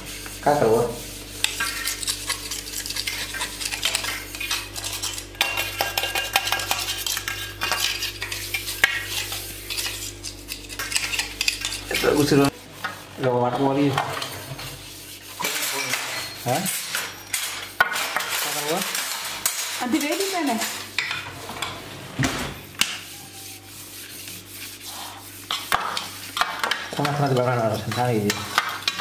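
Steel utensils scraping and clinking against a large steel plate as a thick, ghee-rich laddu mixture is worked and pressed flat with a steel bowl. Several of the scrapes squeak.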